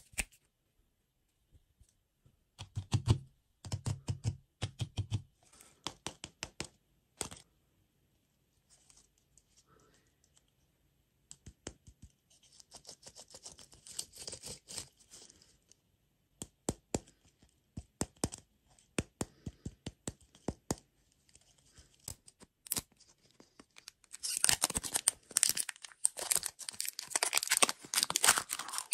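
Plastic film wrapper on a large ball-shaped lollipop being handled, with scattered clicks and light crinkling. Near the end the wrapper is loudly crinkled and torn off.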